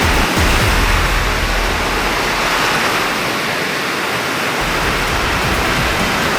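Steady rushing noise of storm water from the flooding rains, with an uneven low rumble underneath.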